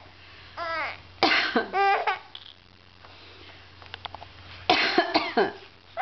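Several short coughs, with a baby's high-pitched laughing squeals between them.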